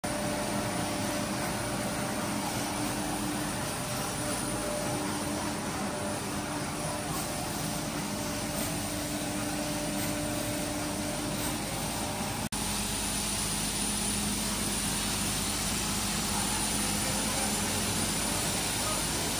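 Steady rushing noise of a train with a faint low hum. It cuts off sharply about twelve and a half seconds in and gives way to a similar, slightly louder steady noise.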